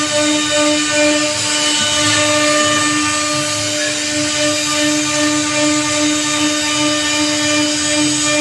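CNC router spindle running with a steady whine while its small bit carves relief into a teak door panel, the cut adding a hiss.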